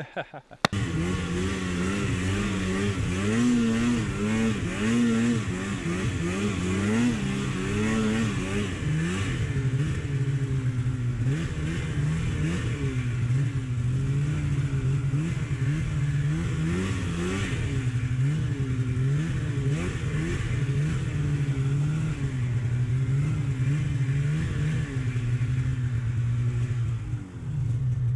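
Mountain snowmobile's two-stroke engine running under the rider, revving up and down again and again as the throttle is worked through deep snow. It dips briefly near the end.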